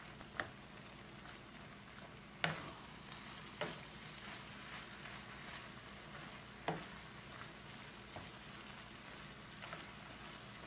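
Shrimp, mushrooms and peppers sizzling quietly in a frying pan while a wooden spoon stirs them. The spoon knocks against the pan a handful of times, loudest about two and a half seconds in.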